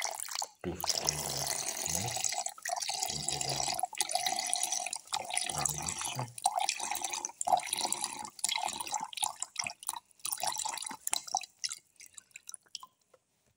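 A thin stream of milk pouring into a steel mixer-grinder jar onto ground banana and Oreo, splashing and trickling steadily; near the end the stream breaks up into scattered drips.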